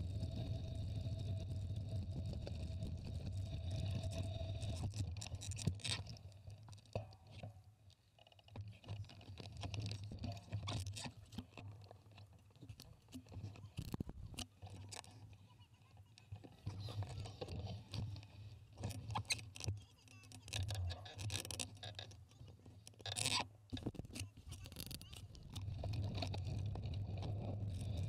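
Wind and tyre rumble on a bike-mounted camera while riding. About six seconds in it drops to a quieter stretch of scattered clicks and knocks, and the steady rumble returns near the end.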